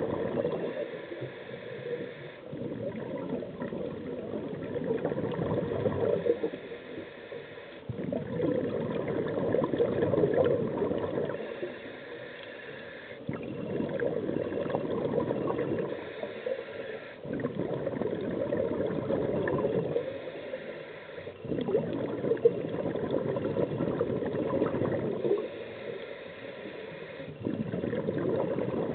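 Scuba regulator exhaust bubbling underwater as the diver breathes out, in repeated gurgling bursts a few seconds long. Between the bursts come short quieter pauses while the diver breathes in.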